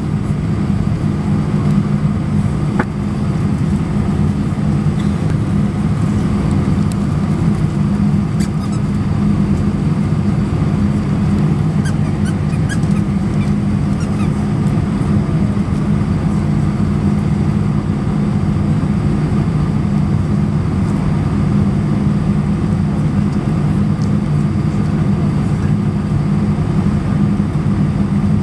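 Airbus A319 cabin noise while taxiing: a steady low drone of the jet engines and rolling airframe heard from inside the cabin, with a few faint clicks around the middle.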